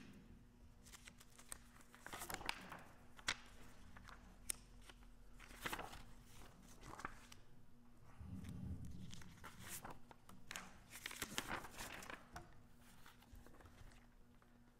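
Faint rustling and crinkling with scattered light clicks and knocks, over a low steady hum.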